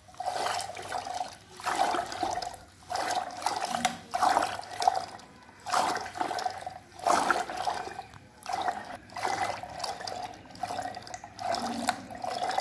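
A hand-held buttermilk churner spun in sugared lemon water in a stainless steel pot, swishing and sloshing in strokes about once a second. Undissolved sugar grates against the metal as it is stirred in.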